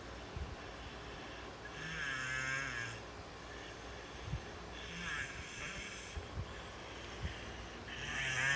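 Snoring in slow, regular breaths, about one every three seconds: three snores, each a low buzz with a hiss over it, the third starting near the end.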